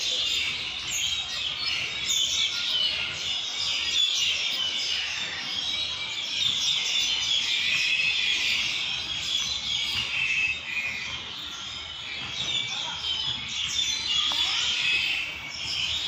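Dense chorus of many small birds chirping and twittering at once, overlapping calls with no pause, a little quieter around twelve seconds in.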